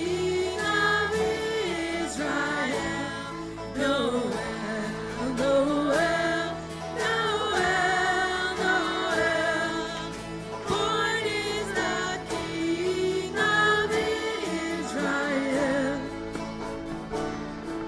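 Worship music: a sung melody with vibrato over steady sustained instrumental chords.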